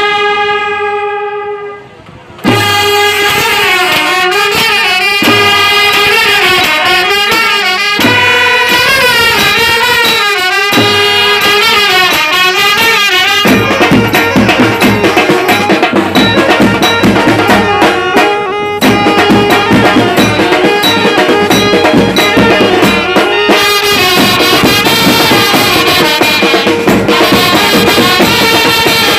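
Indian brass band playing: trumpets, euphonium, saxophone and clarinet carry a tune over side drums. A held chord fades out about two seconds in, the band strikes up a melody just after, and the playing gets busier about halfway through.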